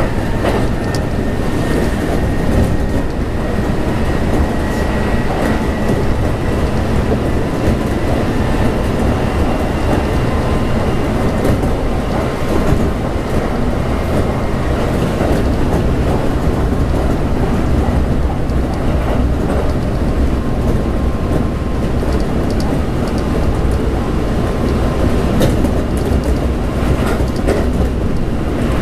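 Running noise of a Kintetsu 1259 series electric train heard from inside the car: a steady wheel-on-rail rumble, with a faint whine from its GTO-inverter traction motors over the first few seconds and occasional clicks over rail joints.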